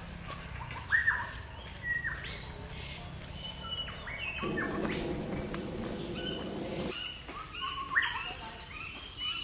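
Several forest birds calling, with many short chirps and whistled notes, some sliding in pitch, scattered all through. In the middle, a low rushing sound lasts a couple of seconds.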